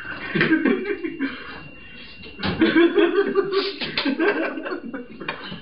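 People laughing and chuckling in short uneven bursts, loudest around the middle.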